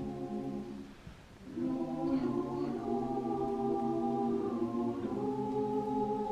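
Choir singing long held chords. The sound breaks off for a short breath about a second in, then the next phrase begins.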